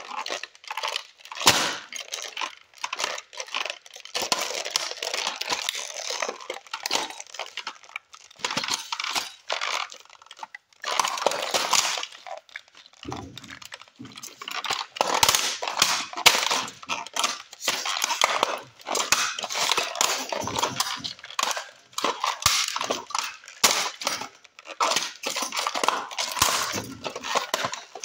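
Silver model car being crushed under foot by model cars strapped to the feet: repeated crunching, cracking and clinking of metal and plastic as it breaks apart, with small pieces falling on a concrete floor.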